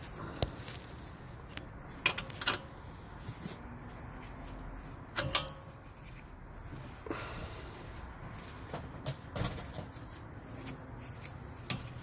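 Scattered metallic clicks and knocks of an Allen key and hands working the rear brake caliper's lower guide pin bolt loose. The loudest knock comes about five seconds in.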